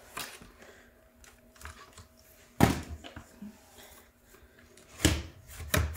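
Hard plastic parts of an LG CordZero stick vacuum and its charging stand clicking and knocking as they are handled and pulled apart, with one sharp knock a little before halfway and two more near the end.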